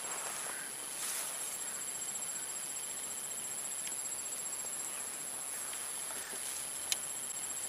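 Steady chorus of insects, crickets or similar, with a continuous high whine and a finely pulsing high trill. A brief rustle sounds about a second in, and a single sharp click near the end.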